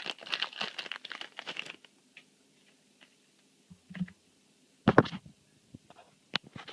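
Foil booster pack wrapper crinkling and tearing open for about the first two seconds, followed by a few scattered short taps.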